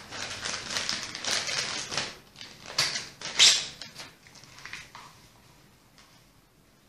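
Crinkling and rustling of a clear plastic bag as a fabric blood-pressure cuff is pulled out and handled, with two louder crackles about three seconds in. The handling noise dies away after about four seconds.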